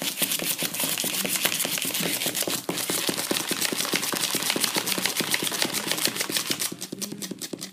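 A Lhasa Apso puppy's claws tapping rapidly on cardboard as it prances and scrabbles: a dense run of quick clicks that eases off near the end.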